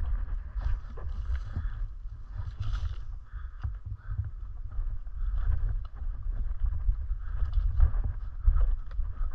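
Footsteps on a dirt trail picked up by a body-worn camera, with scattered short crunches and ticks over a steady low rumble of wind and handling noise on the microphone.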